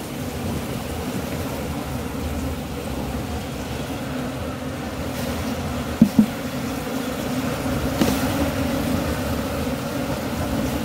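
Steady humming buzz of a mass of Asian honeybees (Apis cerana) on an opened hive with its frames lifted. Two quick wooden knocks come about six seconds in as a comb frame is handled in the box.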